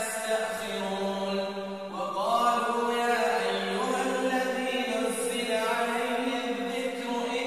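Background music of a voice chanting in long, held notes, with a rising glide about two seconds in.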